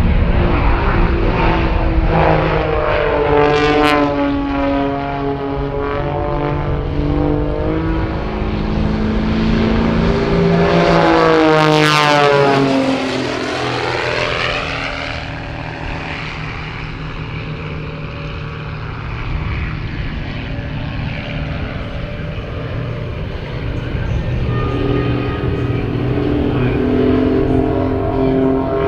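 Four Pitts Special aerobatic biplanes flying in formation: their piston engines and propellers drone together, the pitch rising and falling as they manoeuvre. The sound swells into a sweeping pass about halfway through, eases off, then builds again near the end.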